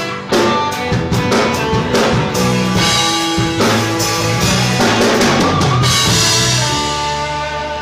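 Live band of drum kit, electric bass, electric guitar and stage piano playing with a steady drum beat. Near the end it closes on a held chord under a fading cymbal wash.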